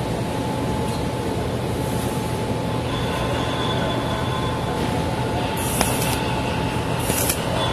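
Two short tack welds with a dual-shield flux-cored wire gun: brief crackling bursts of arc, each about half a second, the first about five and a half seconds in and the second near the end. Under them runs a steady, loud mechanical drone with a thin steady whine.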